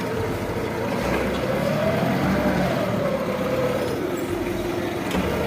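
Water running steadily, washing mud off a toy, with a faint tone that rises a little about halfway through and falls back.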